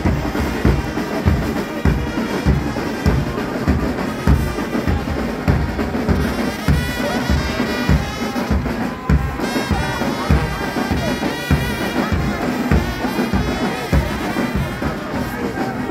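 Church brass band playing, a bass drum beating a steady, even beat of about two strikes a second under the brass horns.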